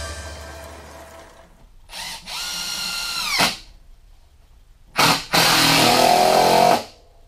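Power drill run twice. About two seconds in it gives a short blip, then runs for about a second and winds down in pitch. About five seconds in it gives another blip, then a louder, rougher run of about a second and a half.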